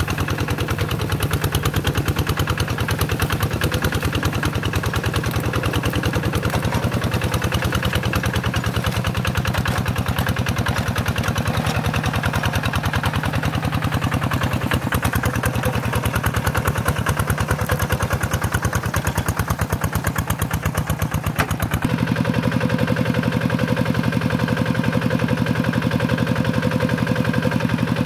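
Single-cylinder diesel engine of a two-wheel hand tractor chugging steadily as its cage wheels work through a muddy rice paddy. About 22 seconds in the engine note changes and becomes steadier.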